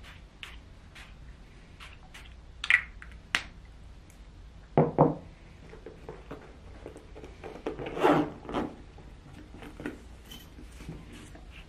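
Scattered light clicks and knocks of objects being handled, with two louder thumps about five seconds in and a rustling, rubbing sound around eight seconds in.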